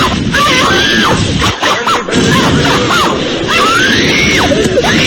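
A loud tantrum scream: a voice wailing up and down in long rising and falling shrieks over a constant harsh, noisy din.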